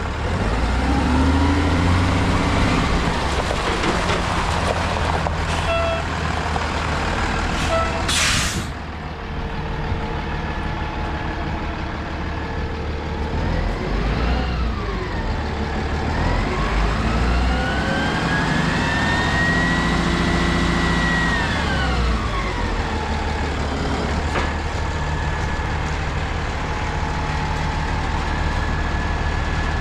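Diesel engine of a 2009 Capacity yard spotter truck running, with a short sharp hiss of released air about eight seconds in. Later the engine revs up and slowly back down over several seconds.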